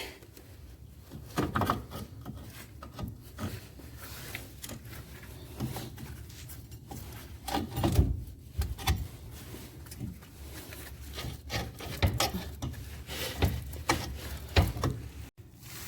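Steel front sway bar being pulled and worked against the underside of the car, with irregular scraping and knocks of metal rubbing on metal as it resists coming out.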